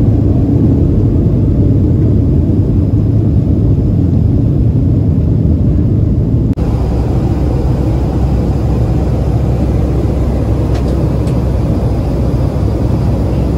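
Jet airliner cabin noise in flight: a steady, loud low roar of engines and rushing air, with a momentary break about six and a half seconds in.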